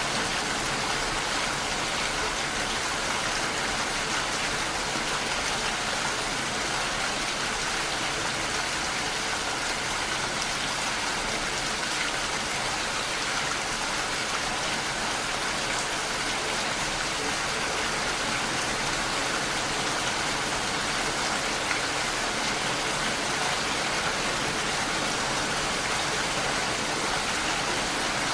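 Steady, even rain falling.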